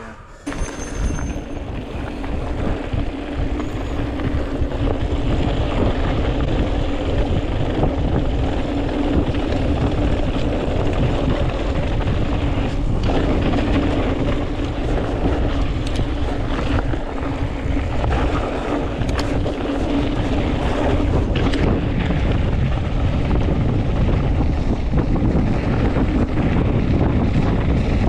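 Wind rushing over the microphone and tyres rolling over a dirt trail as a hardtail mountain bike is ridden at speed. The noise builds over the first couple of seconds and then stays loud and steady.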